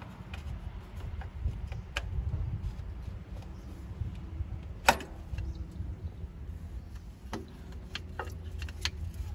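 Sharp clicks and knocks of hands handling the fuel filter and its fittings on a backhoe loader's engine, with one louder click about five seconds in, over a steady low rumble.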